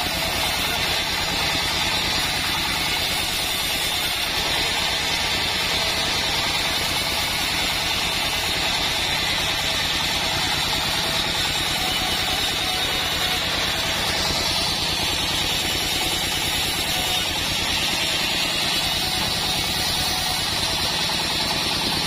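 Engine-driven band sawmill running steadily, a constant engine drone with the hiss of the band blade while hibiscus wood is sawn into boards.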